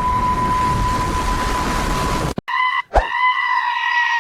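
Strong wind buffeting the microphone, with a steady high whistle through it. About two and a half seconds in it cuts off suddenly, and a long, high, held cry begins, with a sharp knock near its start.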